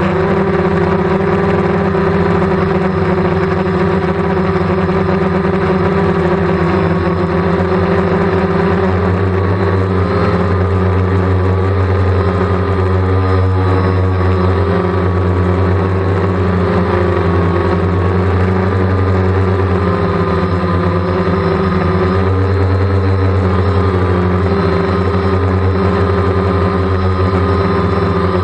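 DJI Phantom quadcopter's motors and propellers whirring steadily, heard from the camera on board the drone. The pitch wavers slightly now and then as the drone manoeuvres.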